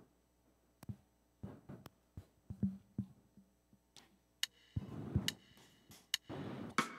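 Scattered clicks and taps of hands on a Yamaha electronic keyboard's keys and panel buttons as it is set up, with a brief low note about two and a half seconds in.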